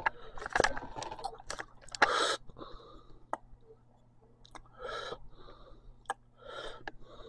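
Clicks and rustling from a camcorder being handled and turned, with a short breathy rustle about two seconds in. After that, faint, muffled cartoon dialogue comes from a television.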